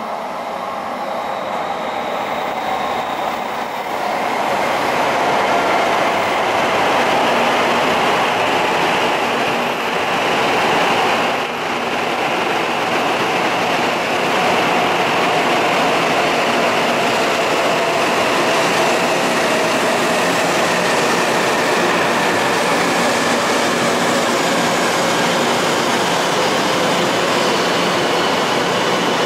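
E5 series Shinkansen train rolling slowly into the station alongside the platform: a steady rushing of wheels and running gear with a faint high whine. It grows louder about four seconds in, then holds steady.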